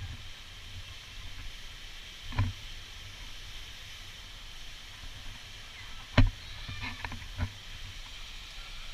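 Steady rush of waterfall water, broken by three sharp thumps, the loudest about six seconds in.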